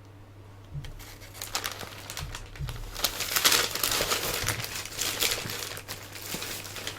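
Plastic packaging crinkling and rustling as it is handled, with many small crackles. It starts about a second in and is busiest in the middle, over a steady low hum.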